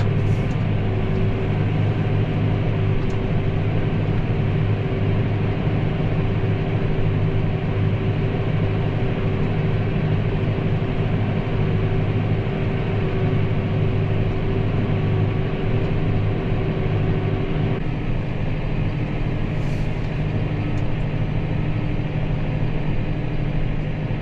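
Massey Ferguson 5S.115 tractor's four-cylinder diesel engine running steadily as the tractor drives across the field. Its note shifts a little about three-quarters of the way through.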